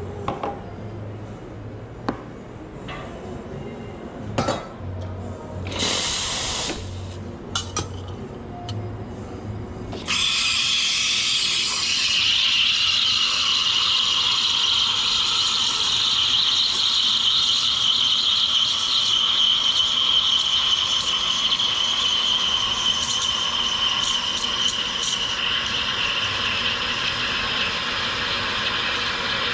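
Espresso machine steam wand steaming milk in a pitcher: after a few knocks and a short hissing purge, it starts with a sudden hiss about ten seconds in as air is drawn into the milk, then settles into a steady high-pitched whistling hiss that runs on.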